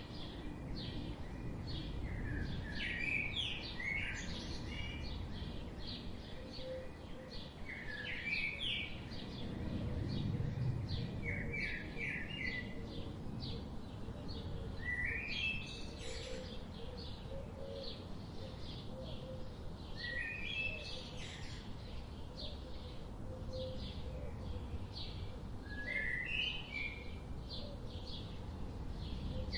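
A flock of budgerigars chirping and chattering: many short high chirps and quick up-and-down whistled notes, coming several a second without pause.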